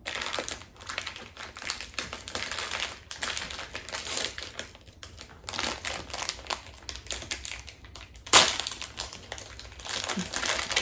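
Plastic toy packaging crinkling and crackling as it is handled and opened, a dense run of small irregular clicks, with one sharp louder click about eight seconds in.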